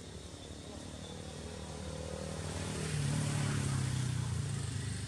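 A motor vehicle passing: a steady engine hum grows louder, peaks about three seconds in with its pitch dropping as it goes by, then fades.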